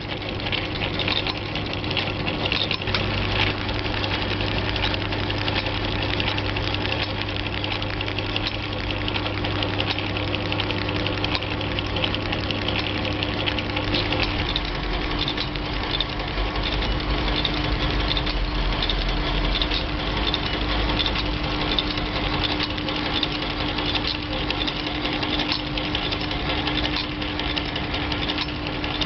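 Venus VP-380PR two-needle pleating sewing machine running steadily, its stitching mechanism ticking rapidly over a steady motor hum. The low hum shifts lower about halfway through.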